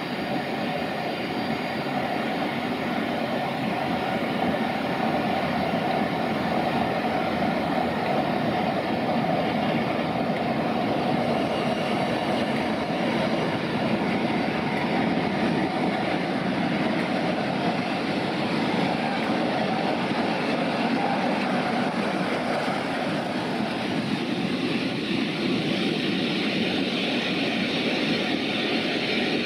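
Class 47 diesel locomotive, with its Sulzer V12 engine, running steadily as it approaches and draws alongside on a passenger train.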